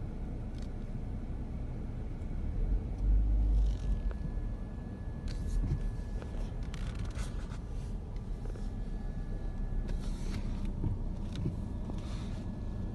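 Low rumble of a car interior as the car rolls slowly over an uneven lot, swelling heavier about three seconds in. A faint steady high tone runs on from about four seconds in.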